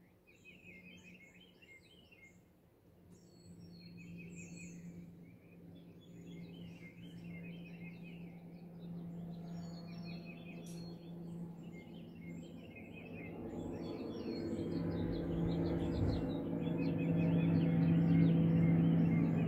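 A motorboat's engine drone, a steady hum that grows louder as the boat approaches, loudest near the end. Small birds chirp in quick bursts over it, mostly in the first two thirds.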